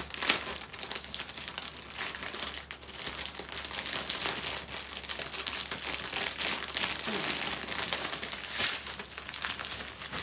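Small clear plastic bags of diamond painting drills crinkling as they are picked up and handled, with irregular crackles throughout.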